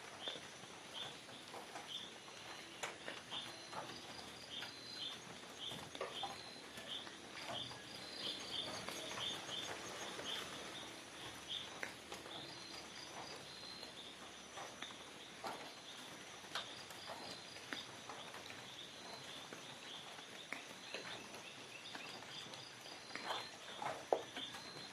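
Forest ambience: many short chirps repeating throughout, over a steady high-pitched insect whine, with scattered small clicks and snaps.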